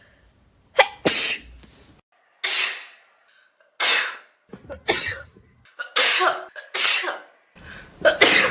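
A young woman sneezing in a rapid fit, about seven sharp sneezes roughly a second apart: a bout of repeated sneezing from rhinitis.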